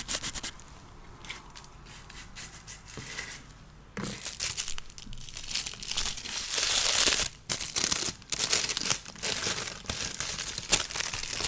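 Close-miked packaging crinkling and tearing as an advent calendar door and its wrapped product are opened: faint scattered crackles at first, then about four seconds in a dense burst of crinkling and tearing lasting about three seconds, followed by intermittent crinkles.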